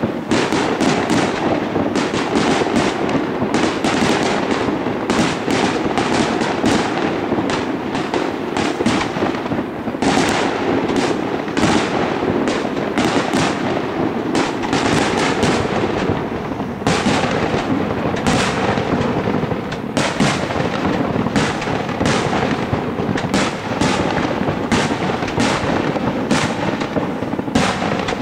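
Fireworks display: aerial shells bursting in rapid, overlapping succession, a dense unbroken barrage of bangs.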